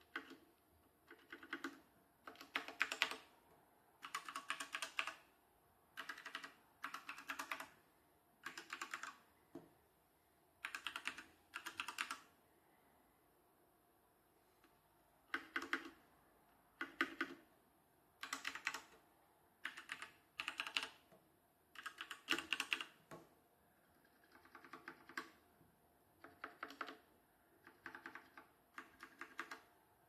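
Keychron C1 tenkeyless mechanical keyboard with brown switches and ABS keycaps being typed on in short bursts of rapid keystrokes separated by brief pauses, with a longer pause about halfway through.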